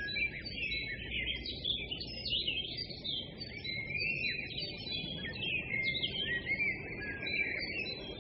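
Birds chirping and twittering continuously, many quick overlapping calls, over a steady low background hiss.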